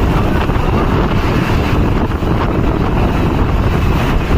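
Typhoon-force wind buffeting the microphone: a loud, steady rush, heaviest in the low end.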